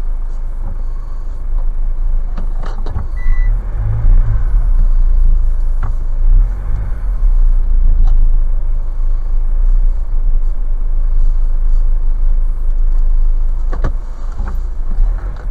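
Kia Sorento driving slowly over a rutted mud track, heard inside the cabin: a steady low rumble of engine and tyres with a few sharp knocks as the car jolts over the ruts.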